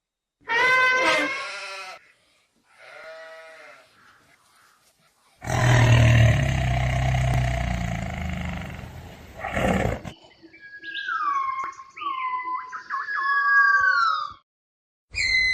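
A string of separate animal calls, cut one after another: a short pitched call, a fainter one, then a long, loud, rough call with a deep low rumble lasting about four seconds, followed by a run of high whistled calls that slide down in pitch.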